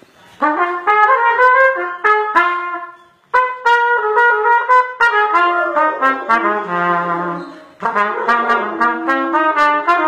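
Trumpet playing a melody in short separate notes, with brief breaks about three seconds in and again near eight seconds.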